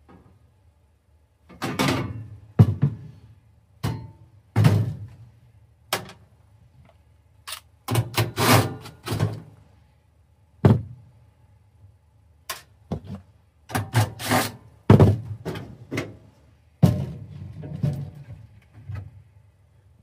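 Parts and tools being handled during HVAC work: irregular knocks, thunks and clatter in bursts, a few of the hits ringing briefly.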